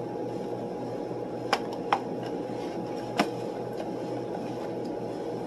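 Chewing and mouth clicks while eating a sausage biscuit, three sharper clicks within the first few seconds, over a steady room hum.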